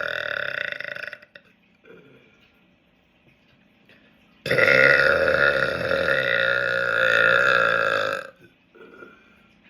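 A man belching on purpose, two long loud burps: the first tails off about a second in, and the second starts about halfway through and runs for nearly four seconds on a fairly steady, slightly wavering pitch.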